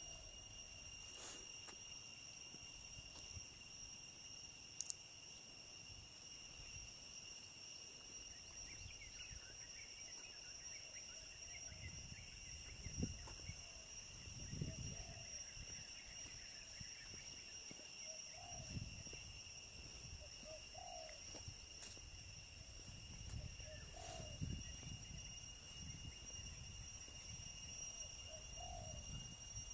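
Faint outdoor garden ambience: a steady high-pitched insect-like drone throughout, with a few short bird calls from about the middle on and some low rumbles of wind or handling on the microphone.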